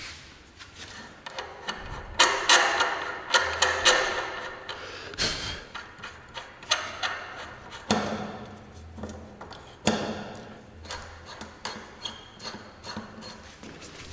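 Metal clinking, scraping and knocking of a wrench and steering-head parts as a motorcycle's steering stem is taken apart, with a dense clattering spell early on and a few single knocks later.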